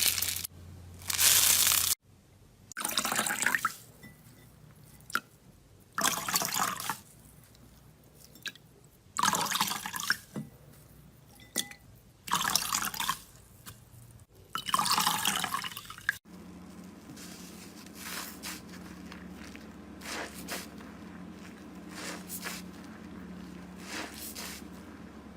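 Slime being squished and squeezed in five wet, crackly bursts of about a second each, roughly three seconds apart. About two-thirds of the way in the sound changes abruptly to a steady low hum with scattered light crackles.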